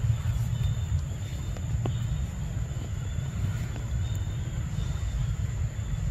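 Low, unsteady rumble of wind buffeting the microphone, with a thin steady high-pitched drone behind it and a few faint ticks.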